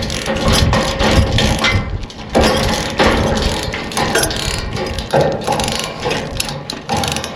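Steel metalwork on a headache rack: dense, irregular crackling and clattering of metal on metal that changes character abruptly twice.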